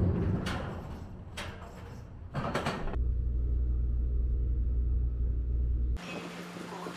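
Car driving aboard a car ferry, with three sharp clunks in the first few seconds. Then a loud, steady low rumble lasts about three seconds and stops abruptly, leaving a quieter low hum.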